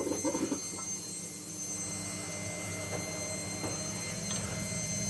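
Steady low machine hum with several steady tones, a few faint clicks, and a brief faint voice at the start.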